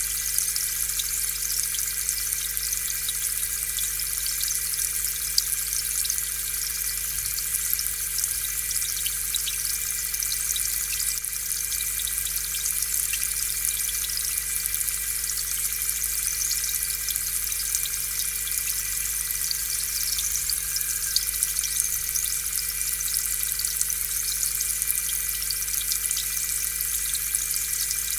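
Aquarium air pump running steadily, with air bubbling and fizzing up through the tank water in fine, irregular crackles over a steady motor hum.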